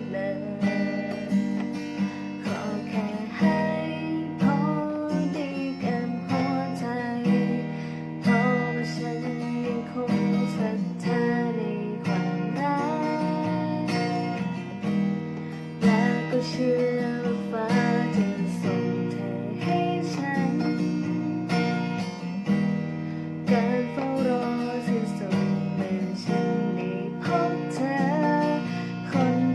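Acoustic guitar strummed steadily, playing the chords of a slow ballad.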